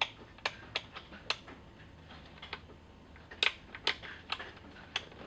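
Sharp clicks of an RC transmitter's three-position toggle switches being flipped through their positions, about eight in two groups of four.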